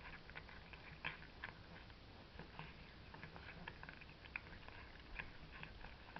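A cat chewing food from a plate: faint, irregular small clicks of its mouth.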